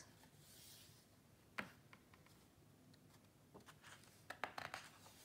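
Faint handling of a hardcover picture book: the cover is opened, with a light tap about a second and a half in and a few soft taps and rustles of hands and paper near the end.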